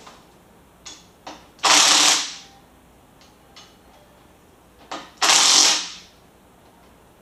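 Cordless power tool run in two short bursts, about a second and a half in and again about five seconds in, tightening bolts at the top of a Harley touring bike's front fork. A few light clicks come before the first burst.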